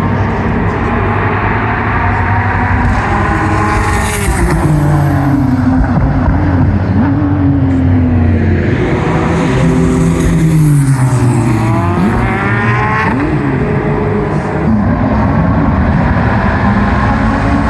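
GT2 race car engines running hard, their pitch falling over several seconds from about four seconds in, with more than one engine note sweeping up and down. About twelve seconds in, one rises sharply as it accelerates.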